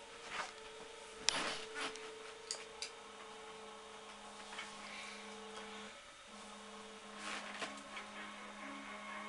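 Scattered soft knocks, clicks and rustling as a person handles things and settles onto a bed, with the sharpest knock about a second in and another cluster near the end, over a steady hum.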